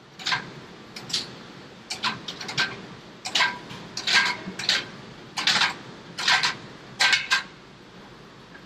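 Steel beer keg on a Glyde stair hand truck being lowered down a steel staircase tread by tread: a series of sharp metallic clanks with a brief ring, about one or two a second.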